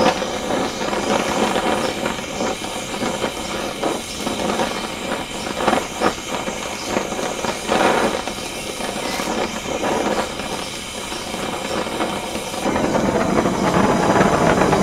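Gas torch flame hissing steadily as it heats rusted studs in an exhaust manifold, with a few light knocks midway.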